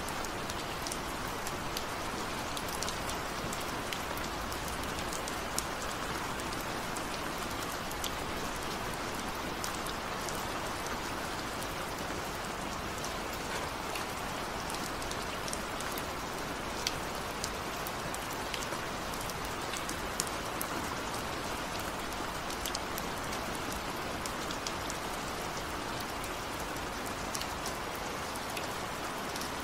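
Steady rain hiss with many scattered, irregular drop ticks, even in level throughout.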